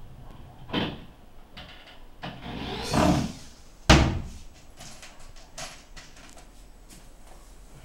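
Wooden cabinet parts being handled and knocked together: a bump about a second in, a scraping slide that builds around three seconds, and a sharp knock just before four seconds, followed by lighter taps.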